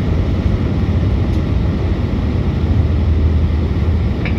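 Steady cabin noise of an Airbus A319 in descent, heard from a window seat over the wing: a low rumble of the engines and the rushing air.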